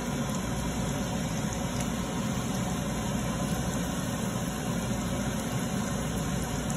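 Floured chicken pieces frying in hot oil in a stainless steel sauté pan: a steady sizzle with a few faint pops over a low, even hum.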